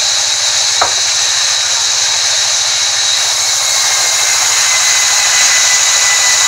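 Sawmill band saw running, its blade ripping a long wooden plank fed along the table: a steady, loud, high-pitched hiss and whine. One sharp click about a second in.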